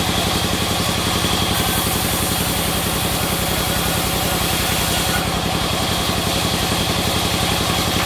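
Large sawmill band saw driven by an engine through a belt, running with a steady rapid chugging. The blade cuts lengthwise through a wooden slab, adding a hiss from about a second and a half in until about five seconds.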